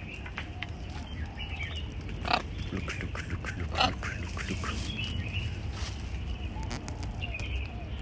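Macaws giving short, harsh grunting squawks, with two sharper, louder calls about two and a half and four seconds in, over a steady low rumble.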